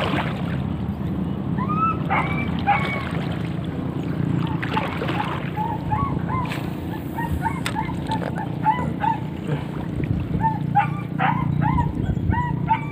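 Short, yelping animal calls, dog-like yips. A few higher calls come early, then from about six seconds in they repeat a couple of times a second, over a steady low rumble.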